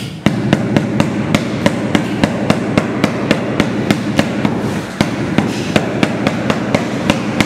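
Rubber mallet tapping a large porcelain floor tile, bedding it into the wet mortar beneath. A fast, even run of dull knocks, about three or four a second, over a steady low background noise.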